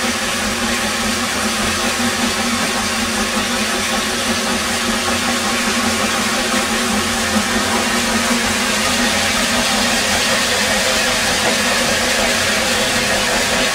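Steady hiss and rumble of a 2-6-0 steam locomotive standing under steam, heard from inside its cab. It grows slightly louder from about four seconds in.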